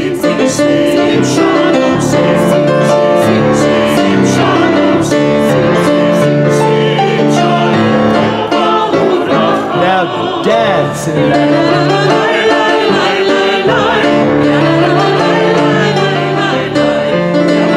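Small mixed choir singing with grand piano accompaniment.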